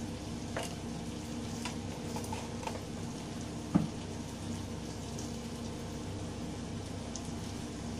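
Onion-tomato masala paste frying gently in oil in a pan, a soft, steady sizzle with a low hum underneath and a few faint ticks. A single sharp knock sounds about four seconds in.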